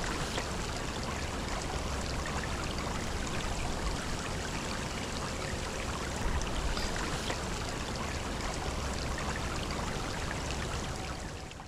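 Shallow creek running over rocks and gravel: a steady rush and trickle of water that fades out near the end.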